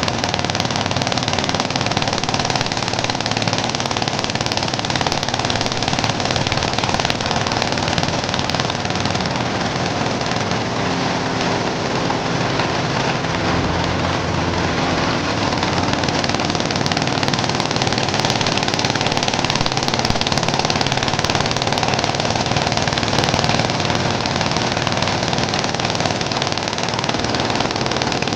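Dongfeng-engine-driven corn sheller running steadily: the engine's hum under the machine's constant dense noise as it strips kernels from the cobs.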